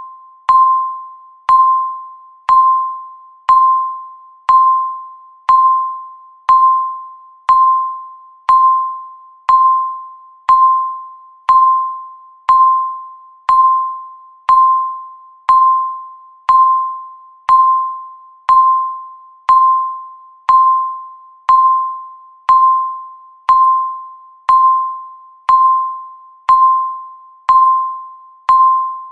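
Countdown timer beeping once a second: a short electronic tone at one steady pitch that starts sharply and fades quickly, repeating evenly.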